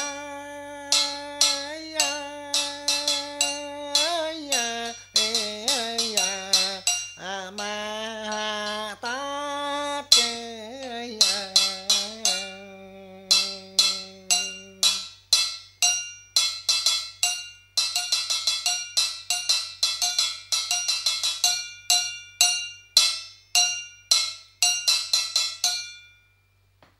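Chầu văn music: a held, bending melodic line over a steady pattern of sharp percussion strikes. The melody stops about halfway through, leaving only the strikes, which end shortly before the close.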